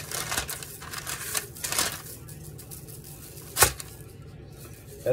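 A plastic spice shaker shaken over raw meat: short bursts of rattling granules, with one sharp knock about three and a half seconds in.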